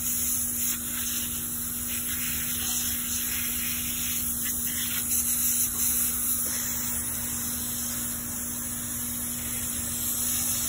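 Garden hose spray nozzle spraying water onto a horse and the wet floor: a steady hiss.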